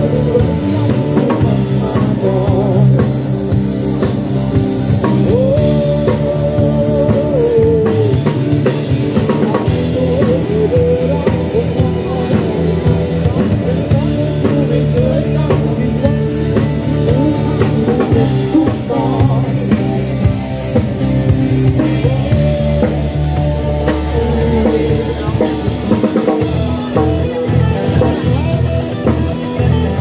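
A live rock band playing through amplifiers: drum kit, electric guitars and bass guitar, with an acoustic guitar.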